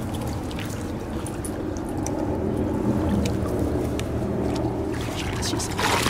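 Shallow water running and trickling steadily, with a low hum underneath. Near the end a mink lunges into the water after a fish with a splash.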